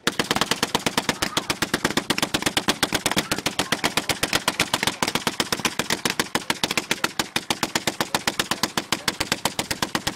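Hand-cranked Civil War/Spanish-American War era Gatling gun firing one long burst of rapid, evenly spaced shots that begins suddenly.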